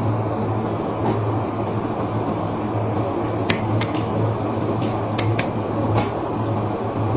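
Steady low mechanical hum, like a fan or air conditioner, with about seven short sharp clicks scattered through it, two close pairs among them.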